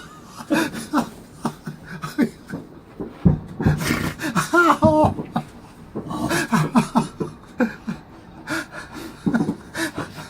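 A man laughing hard and breathlessly in gasping, panting bursts, with a low bang about three seconds in.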